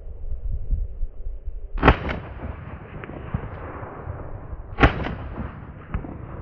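Two rifle shots about three seconds apart from a Browning BAR Mk3 semi-automatic in .30-06, each followed by a trailing echo.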